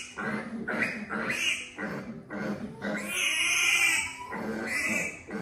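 Young piglet squealing repeatedly in distress while held on its back and castrated with a scalpel, with one long, loud squeal around the middle.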